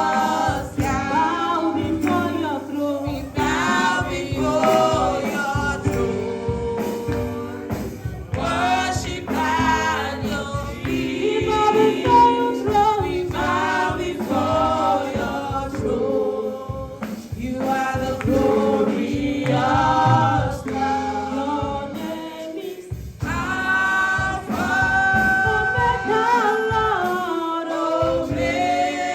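Gospel worship music: a choir singing in harmony with musical backing.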